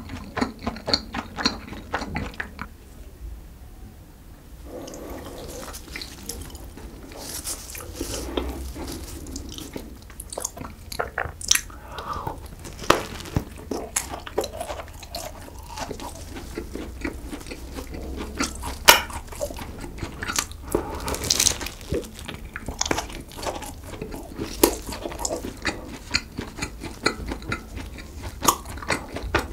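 Close-miked chewing, then from about five seconds in crisp, crackling bites into a flaky chocolate-coated croissant. Sharp crunches come every second or two, with chewing between.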